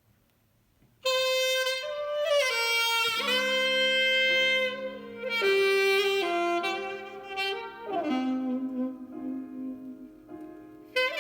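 Music played from a vinyl record through a turntable phono input. It starts abruptly about a second in after a near-silent lead-in, with a lead instrument playing long sustained melodic notes.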